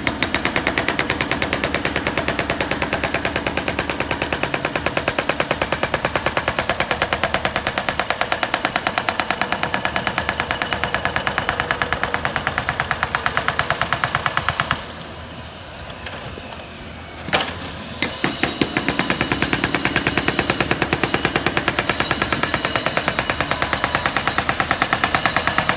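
Hydraulic breaker on a mini excavator hammering concrete in rapid, steady blows. It stops for about two seconds past the middle, gives a few single blows, then hammers steadily again.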